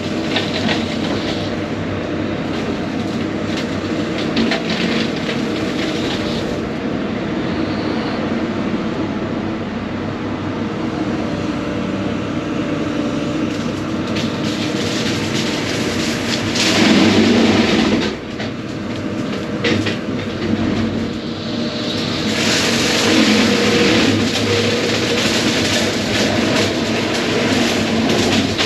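Case excavator's diesel engine working under load while its hydraulic brush-cutter attachment cuts brush and small trees. The cutting gets louder and harsher about halfway through and again over the last few seconds.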